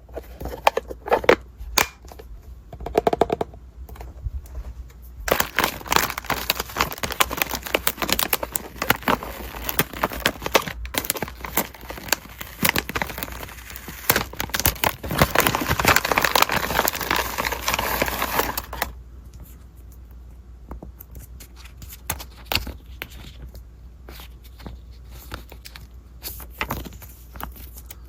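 Packaging being handled and unwrapped: scattered rustles and clicks, then about five seconds in a long stretch of dense crinkling and tearing that stops abruptly near the two-thirds mark, followed by lighter handling noises.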